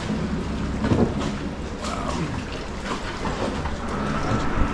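Steady low rumble and hiss of wind on the microphone, with faint voices now and then.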